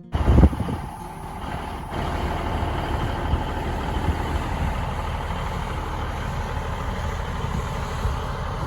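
Heavy vehicle engine running steadily with a low rumble, after a loud sudden noise about half a second in.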